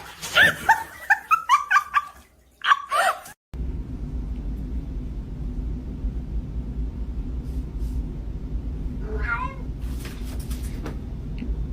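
A cat meowing in quick succession, about a dozen short calls in three seconds. After an abrupt cut comes a steady low hum, with one more brief call near the nine-second mark.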